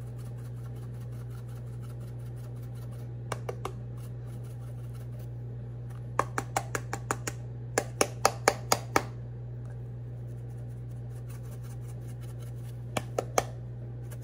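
Sharp taps of a hand hitting an Old Bay seasoning can to knock out seasoning that is sticking inside. They come in bursts: a few light ones, a quick run of about a dozen, then three more near the end, over a steady low hum.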